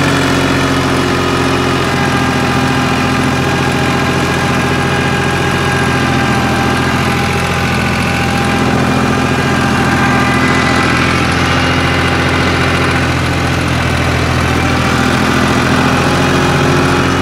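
New Holland 5500 Turbo tractor's diesel engine, fitted with a modified fuel injection pump, running steadily as the tractor drives, heard from the driver's platform.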